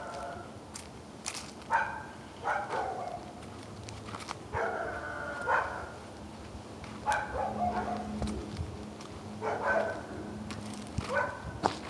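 Dogs barking in short bouts every second or two, with a low steady hum joining about halfway through.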